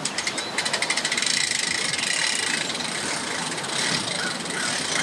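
Hand-cranked boat trailer winch ratcheting, its pawl clicking rapidly as the strap winds in and draws the boat up onto the trailer.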